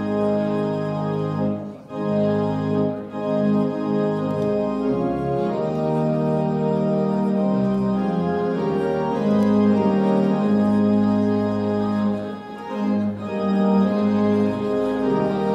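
Organ music playing held chords that move from one to the next, dipping briefly twice.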